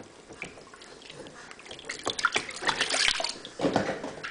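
Bathwater sloshing and splashing in a plastic baby bathtub as a baby is washed, quiet at first and busier in the second half.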